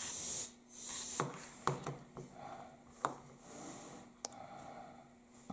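Short blasts of hiss from a can of compressed air fired through a thin red straw, blowing wet alcohol ink across the painting: two blasts in the first second or so, then a few light clicks and taps.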